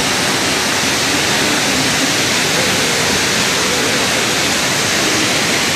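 Waterfall rushing steadily: an even, loud sound of falling water with no breaks.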